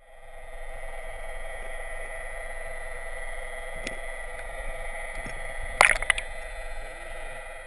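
Steady hum of a boat motor heard through an underwater camera, several constant tones at once. There is a faint click about four seconds in, and a quick cluster of loud sharp clicks or knocks just before the six-second mark.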